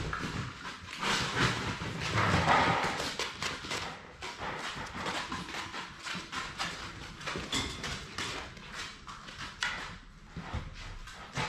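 Six-week-old Labrador Retriever puppies scampering and play-wrestling on a hard floor: a quick, irregular patter of paws and claws clicking. It is busiest and loudest over the first few seconds, then thins out.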